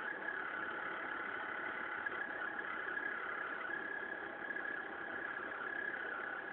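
Hitachi window-type inverter air conditioner running with a steady hum and a high whine. This is the abnormal noise its compressor makes when it speeds up.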